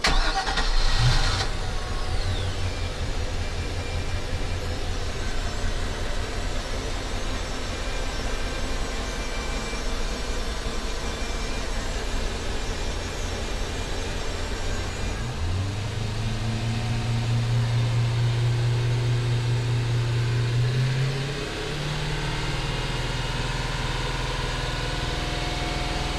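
Twin MerCruiser 5.0 small-block V8 marine engines, heard up close in the open engine bay: an engine starts about a second in and settles into a steady idle. About fifteen seconds in, a deeper, stronger hum joins, and a few seconds later it steps up in pitch.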